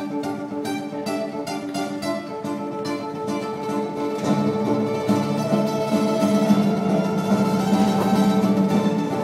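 Acoustic guitar played fingerstyle: separate plucked notes, then about four seconds in louder, fuller chords that ring on together.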